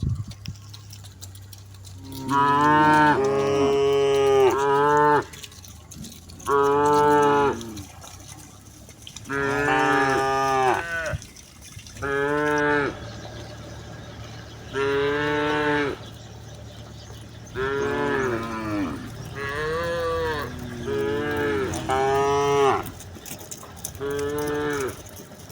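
Cattle mooing over and over: about ten calls of one to two seconds each, with short pauses between them and the pitch of each call bending up and down.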